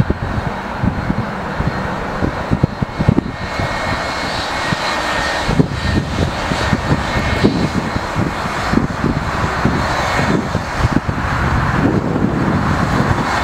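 Boeing 757's twin jet engines running as the airliner rolls along the runway: a steady jet roar with a thin high whine, slowly growing louder.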